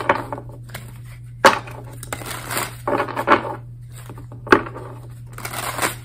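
A deck of tarot cards being shuffled by hand: repeated short rustling flutters of the cards with a couple of sharp snaps, over a steady low hum.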